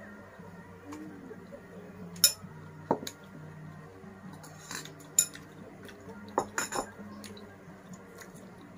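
Spoon clinking against a bowl and dishes knocking on a tray: several sharp clinks a second or more apart, with a quick cluster around two-thirds of the way in, over a faint low hum.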